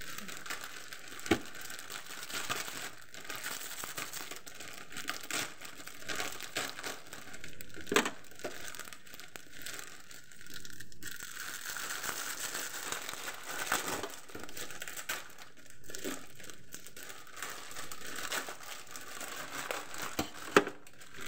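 Plastic instant-noodle seasoning sachets crinkling and rustling as they are torn open and squeezed out over a bowl, with a few sharp clicks.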